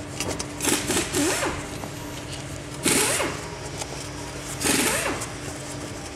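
A coilover shock being worked in a spring compressor: three short squeaky, scraping bursts roughly two seconds apart over a steady hum.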